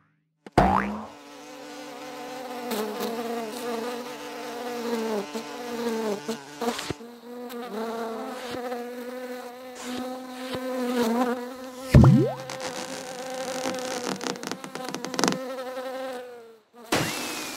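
A fly buzzing steadily, its pitch wavering up and down as it hovers and circles. A short springy bounce comes about half a second in, and a loud thump with a quick rising glide about twelve seconds in.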